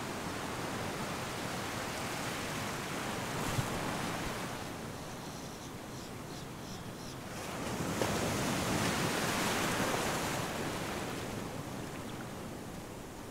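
Ocean surf washing in the shallows: a steady rush of breaking waves that eases a little about five seconds in, swells louder as another wave breaks about eight seconds in, then fades back.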